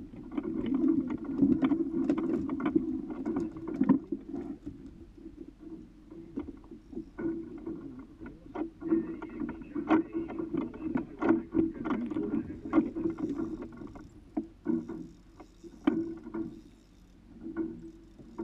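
Water slapping against the hull of a small boat at rest, with irregular knocks and clicks throughout.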